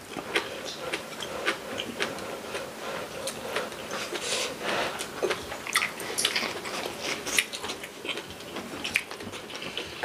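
Close-miked chewing of bean sprout bulgogi: a steady, irregular run of small crunchy clicks as a mouthful is bitten and chewed.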